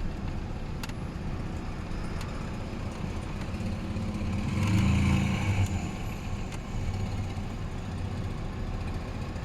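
Gazelle Next light truck under way: steady engine and road noise, swelling louder for about a second around the middle.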